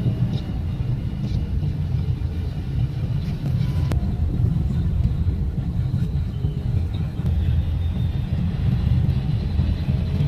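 Steady low rumble of a car driving on a city street, heard from inside the cabin: engine and tyre noise.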